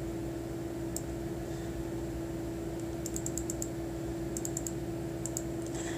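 Quick runs of light clicks, four or five at a time, from scrolling a web page on a computer, over a steady low hum.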